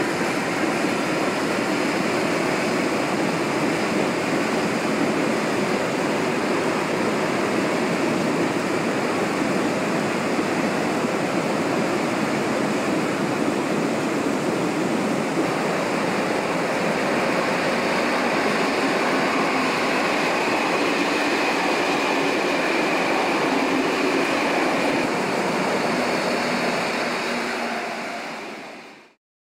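Yellow railway track-maintenance machines running along the line: a steady mix of engine and wheel noise that fades out near the end.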